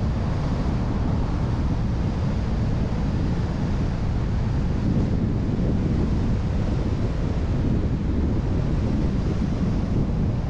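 Steady rumble of a car driving at road speed, with wind noise on the microphone and road noise mixed together.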